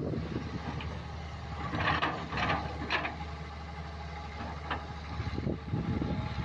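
Hydraulic crawler excavator's diesel engine running steadily, with a few short harsh noises from the bucket and hydraulics working a pile of uprooted plant debris and soil, grouped around two to three seconds in.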